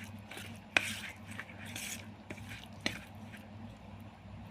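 Semolina and milk being mixed in a large bowl: soft, irregular wet squishing and scraping, with two sharp clicks about a second in and near three seconds.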